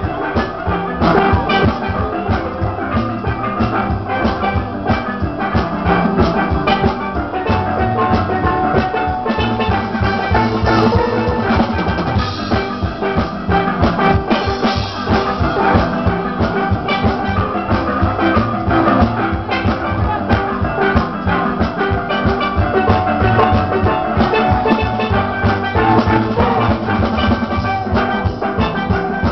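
Steel band playing live: many steel pans carrying the tune and chords over a drum kit keeping a steady, fast beat.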